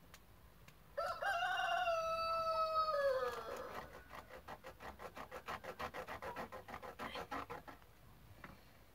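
A rooster crowing one long, drawn-out call that drops in pitch at the end. A fast pulsing run of clucking follows for about four seconds.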